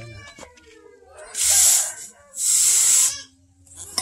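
Hot steel hoe blade, forged from old disc plough steel, being quenched in a water trough: it hisses twice in short bursts as it is dipped into the water.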